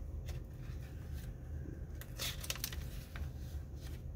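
Paper pages of a hand-bound journal being turned by hand. About two seconds in there is a soft paper rustle with a few light clicks, over a low steady hum.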